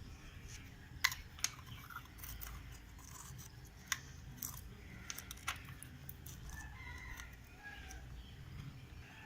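A few sharp, irregularly spaced clicks and knocks of the motorcycle's oil filler cap and fittings being put back on and closed after the fresh engine oil has gone in.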